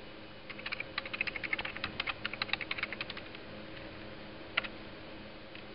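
Typing on a computer keyboard: a quick run of keystrokes for about three seconds, then one louder single click about four and a half seconds in. A faint steady hum runs underneath.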